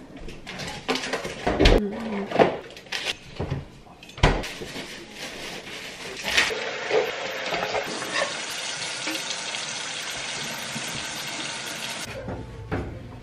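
Groceries being put away by hand: plastic packaging crinkling and items knocking onto the counter and pantry shelves. About halfway through, a steady hiss starts and runs for several seconds, then stops.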